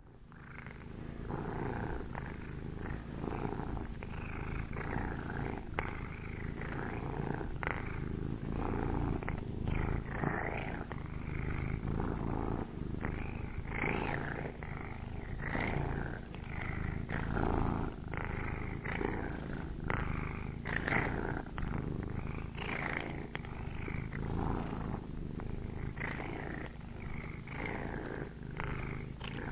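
A domestic cat purring without a break, the purr swelling and easing in a regular rhythm with each breath in and out.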